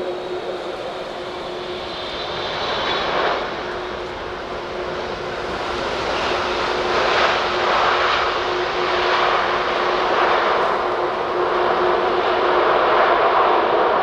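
Twin GE90 jet engines of a Boeing 777 freighter during touchdown and landing roll: a steady jet noise that grows louder from about halfway through, as reverse thrust is applied to slow the aircraft.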